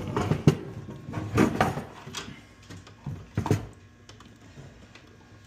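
Handling knocks and clicks from hands working on fire alarm panel parts, a handful of sharp knocks over the first three and a half seconds, then quieter.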